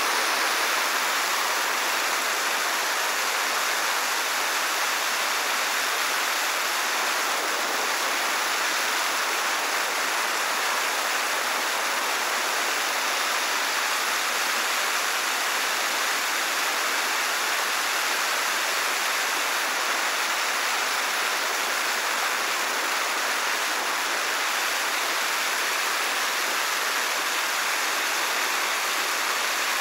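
Gas torch running with a steady, even hiss as its flame plays on a billiard ball.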